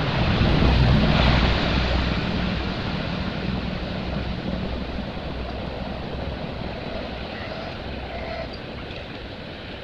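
Wind buffeting the microphone outdoors, a rushing gust that swells about a second in and then slowly eases off.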